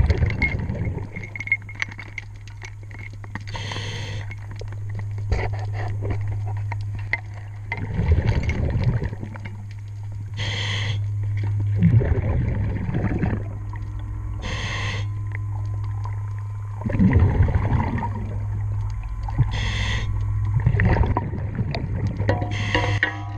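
A diver breathing through a regulator underwater: every few seconds a hissing inhale is followed by a low burble of exhaust bubbles, over a steady low hum.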